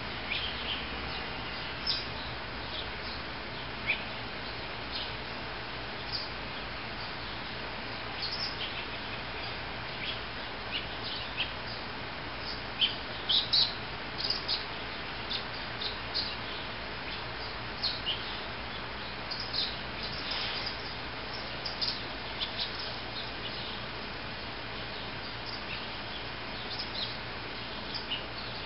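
Small birds chirping repeatedly in short, high calls over a steady background hiss.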